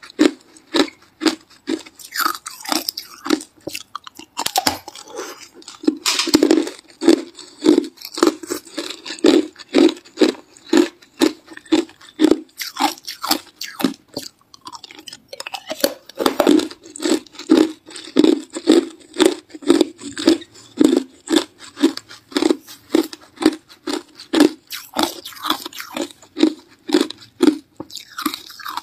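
Hard ice crunching between the teeth as it is bitten and chewed, in a steady rhythm of about two crunches a second.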